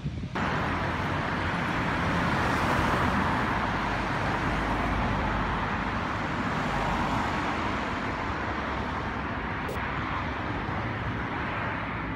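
Steady road traffic noise: the continuous rush of cars passing on a road, starting abruptly just after the start.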